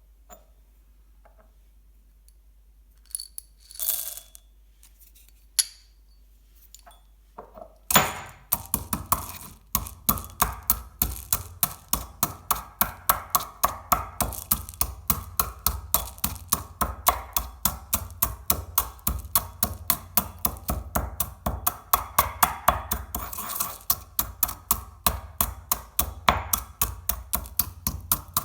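Chocolate balls being crushed one after another: a quick, even run of sharp cracks and crunches, about three a second, starting about eight seconds in after a few scattered clicks.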